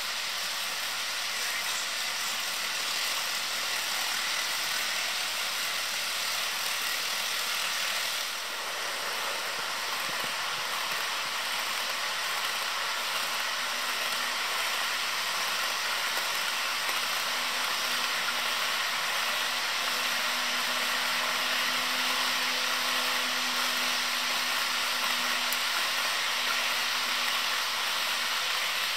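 HO scale model freight trains rolling along the track, a steady whirring hiss of many small metal wheels on the rails. A faint steady motor hum joins it in the middle.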